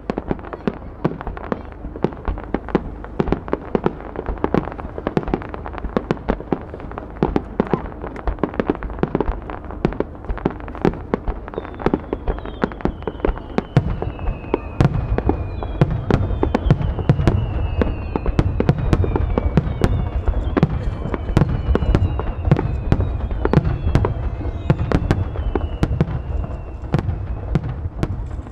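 Fireworks display: shells launching and bursting in quick succession, a dense crackle of sharp bangs many times a second. About halfway through it grows into heavier, deeper booms, and several falling whistles sound over the top.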